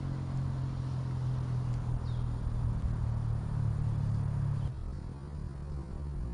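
Steady low engine hum, dropping off abruptly about three-quarters of the way through, with a few faint short high chirps over it.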